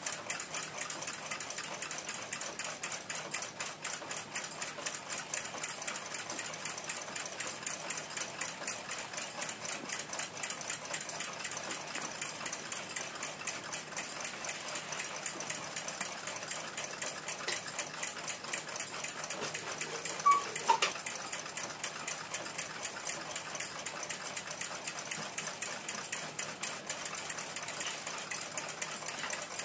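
Steady, fast mechanical ticking, several even ticks a second, with one short, sharper clink about twenty seconds in.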